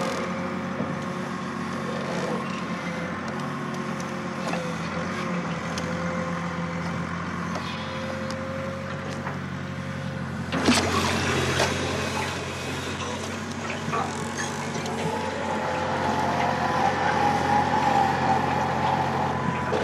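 Engine of a pontoon-mounted grapple crane running steadily while it lifts sunken timber from the lake. A single sharp clank comes about halfway through, and a higher whine rises and grows louder over the last few seconds.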